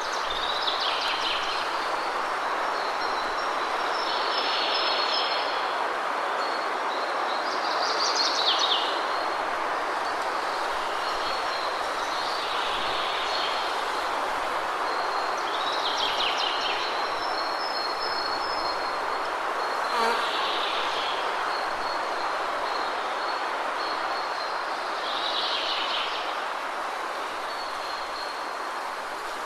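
Waterfall rushing steadily, with a bird calling in short bursts about every four seconds over it. A single sharp click comes about twenty seconds in.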